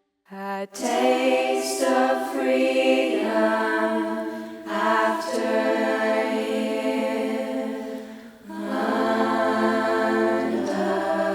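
A choir of voices singing long held notes, starting just after a brief moment of silence, with short breaths between phrases.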